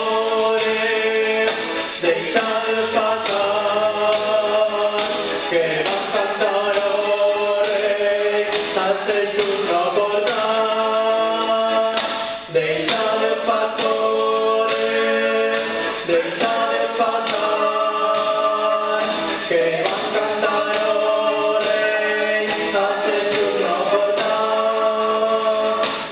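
A choir singing a Christmas carol (villancico) in long held notes, with a brief pause about halfway through.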